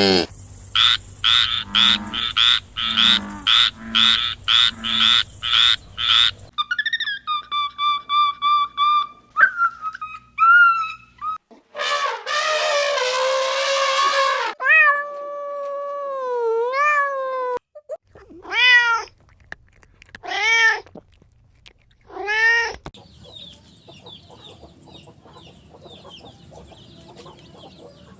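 A run of different animal calls one after another: a rapid rhythmic series of calls, then several drawn-out and gliding calls, then three cat meows about two seconds apart. Faint chirping follows near the end.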